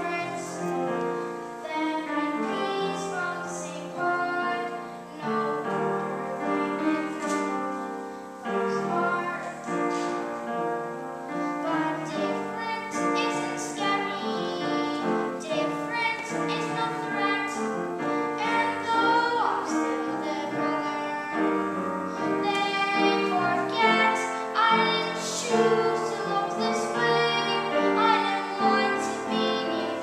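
A boy singing a solo show tune in a high child's voice with piano accompaniment.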